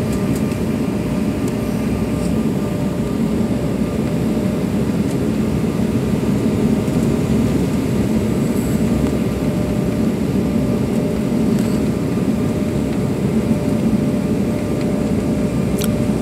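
Steady cabin noise of a jet airliner on final approach, heard from a window seat over the wing: engine hum and rushing airflow, with a faint steady tone running through it.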